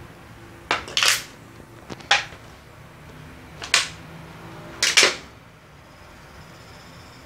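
An empty plastic water bottle crackling as it is handled: several short, sharp crinkling bursts in the first five seconds, the loudest near the end of them.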